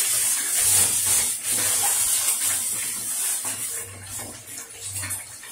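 Water running from a kitchen tap into the sink, a steady hiss that fades away over the last couple of seconds.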